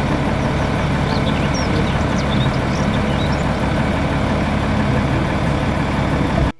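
Volvo tipper truck's diesel engine running steadily with a low hum, with faint bird chirps over it in the first half. The sound cuts off suddenly just before the end.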